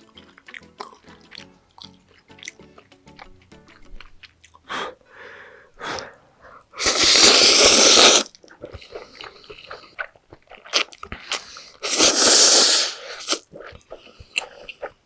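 Spicy cheese stir-fried noodles slurped loudly twice, each slurp lasting a bit over a second, with wet chewing and small mouth clicks in between. Faint background music plays in the first few seconds.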